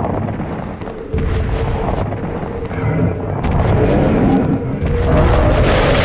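Loud booming, rumbling explosion-like sound effects. The rumble comes in sharply about a second in and builds louder toward the end.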